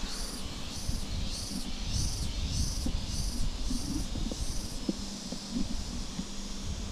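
An insect's pulsing high call, about two pulses a second, that dies away about five seconds in. Underneath run a low rumble, a steady low hum and a few scattered knocks.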